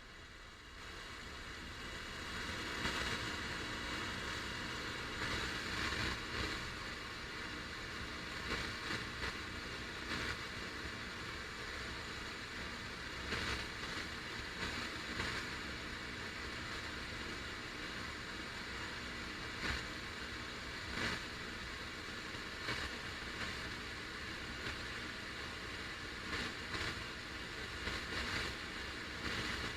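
FM radio static: a steady hiss of untuned radio noise, fading in over the first couple of seconds, with brief crackles every few seconds.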